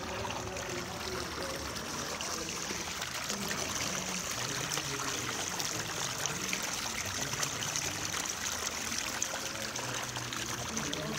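Red liquid trickling in a steady stream across a surface, a continuous fine hiss of running liquid.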